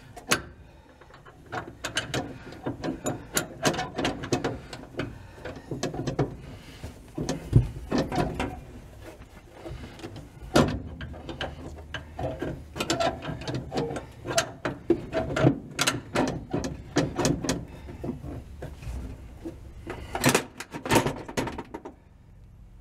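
Irregular metallic clicking and clinking of hand tools and steel brake-lever parts being fitted and bolted back together, with runs of quick clicks.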